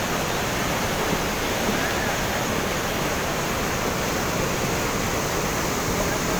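Water rushing through a dam, a steady, unbroken noise.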